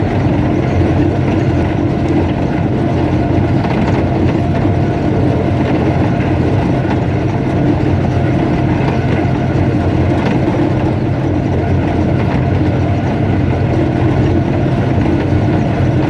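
Diesel-electric locomotive's engine running steadily while the train is under way, heard from the cab as an even, unbroken drone.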